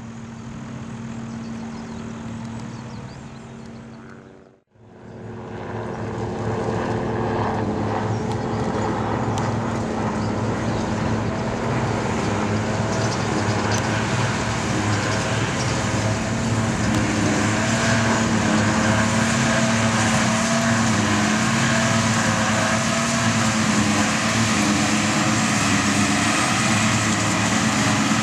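Heavy farm machinery engines running steadily at silage harvest. The sound cuts out briefly about four and a half seconds in, then comes back louder and holds.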